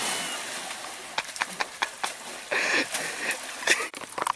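A person belly-flopping into a shallow muddy puddle: a big splash that dies away over about a second, followed by scattered sloshing and splashing as he moves in the water.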